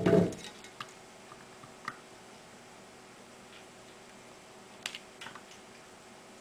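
Handling noise from hand-soldering a circuit board that rests on a plastic project box: a dull knock at the start, then a few light clicks and taps.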